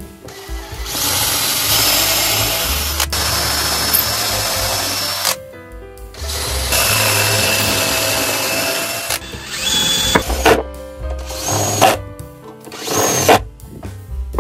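Cordless drill boring into plywood, with a steady motor whine. It runs in two long stretches of a few seconds each, then in a few short bursts near the end. Background music plays underneath.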